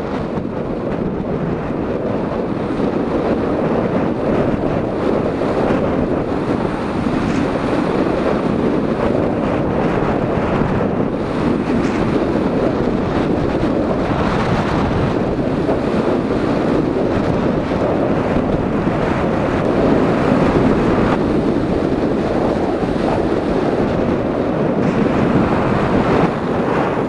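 Heavy wind buffeting the camera microphone as the bicycle rolls downhill at speed, a steady low roar.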